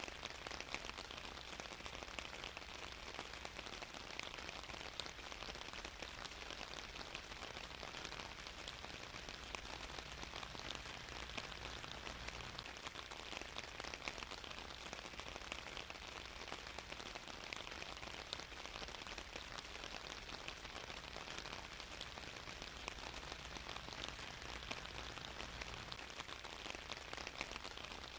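Steady rain falling on a surface, a dense patter of drops with no let-up.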